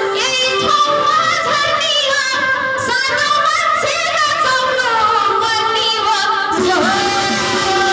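A woman singing a Nepali deusi-bhailo folk song into a hand microphone, amplified through a loudspeaker, her voice wavering and bending in pitch. About six and a half seconds in the sound turns lower and steadier.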